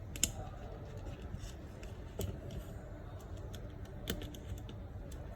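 Small scattered clicks and ticks of a precision screwdriver working a tiny screw into an iPhone 7 logic board, the sharpest just after the start and others about two and four seconds in.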